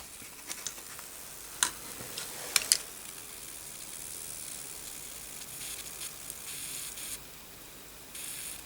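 Flux sizzling on molten solder in a solder pot during a one-shot resoldering of an AGP connector. A high hiss sets in about three seconds in, stops about seven seconds in, and returns briefly near the end. A few sharp clicks come before it.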